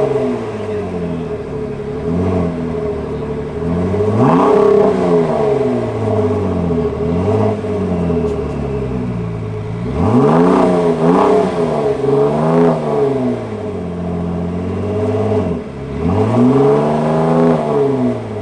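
2017 Ford GT's twin-turbocharged 3.5-litre EcoBoost V6 idling and being revved repeatedly in blips that rise and fall back to idle: a big rev about four seconds in, a quick run of revs around ten to thirteen seconds in, and another near the end.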